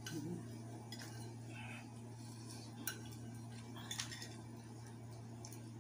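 Metal spoons and forks clinking and scraping against clay bowls while people eat noodles: a few light, sharp clinks, about a second in and again near three and four seconds.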